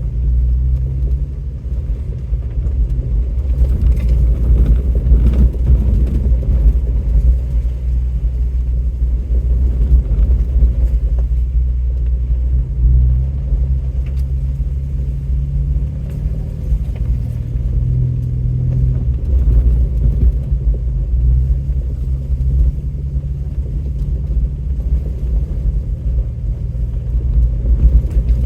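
Off-road vehicle's engine running at low speed on a rough trail: a steady low rumble that rises and falls a little in pitch, with occasional faint knocks.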